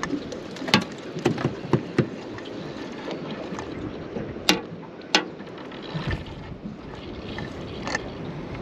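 Sharp knocks and clicks of handling in a small fishing boat, several close together in the first two seconds and two more around four and a half and five seconds in, over a steady hiss of wind and water.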